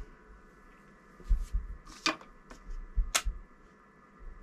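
A few light knocks and clicks of small objects being handled and set down on a wooden desk, the sharpest about two and three seconds in.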